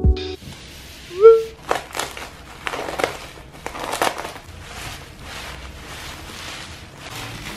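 Bubble wrap crinkling and crackling as it is slit with a box cutter and pulled off a wrapped ceramic plate. A brief, loud rising squeak about a second in.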